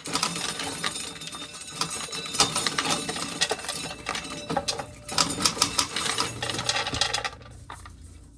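Dried field corn being shelled by hand, with a dense rapid clicking and rattling of kernels coming off the cob and falling into a container. It stops about seven seconds in.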